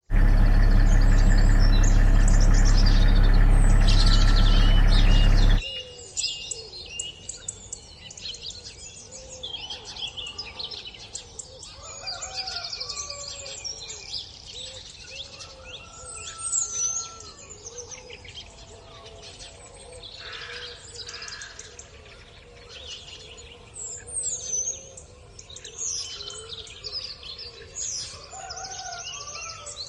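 A loud, dense low-pitched sound for the first five and a half seconds that cuts off suddenly, then a chorus of many birds chirping and calling, with quick high chirps over softer, lower repeated calls.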